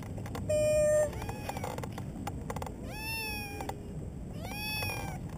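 Domestic cat stuck high in a tree, meowing four times: the first meow is the loudest and is held at a steady pitch, and the others rise and fall in pitch.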